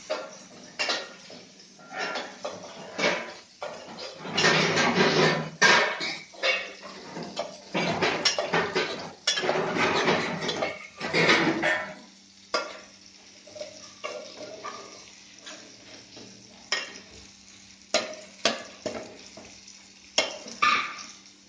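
Utensils clinking and scraping against pots and pans while food is stirred, with a dense spell of clattering in the middle and scattered sharp clinks either side.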